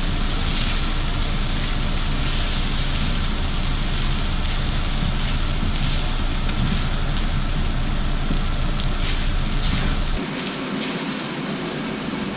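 Fried rice sizzling and crackling in a hot pan as it is folded and stirred, with occasional light scrapes. A low background hum cuts off about ten seconds in.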